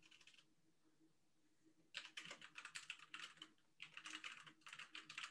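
Faint typing on a computer keyboard: a few keystrokes at the start, a pause, then a quick, continuous run of keystrokes from about two seconds in.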